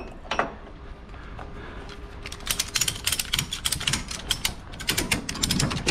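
Cargo ratchet strap being tightened over a trailer load: quiet for about the first two seconds, then a run of rapid metallic ratchet clicks to the end.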